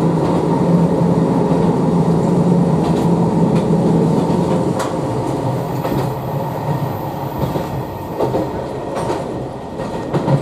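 Hisatsu Orange Railway HSOR-100 diesel railcar running, heard from inside the train. A steady engine drone eases off about five seconds in as the train coasts toward a station, with wheels clicking over rail joints and pointwork.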